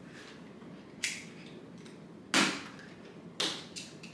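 Doll packaging, plastic and cardboard, giving a few short, sharp clicks and crackles as a doll is worked loose and pulled free: one about a second in, the loudest just before the middle, and two more close together near the end.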